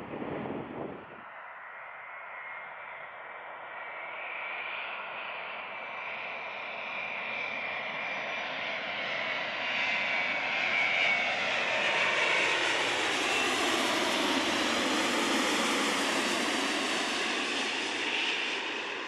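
Boeing 787 Dreamliner's jet engines passing by: the noise builds over several seconds with a high whine on top, swells to a loud, sweeping rush that holds for several seconds, then starts to fade near the end.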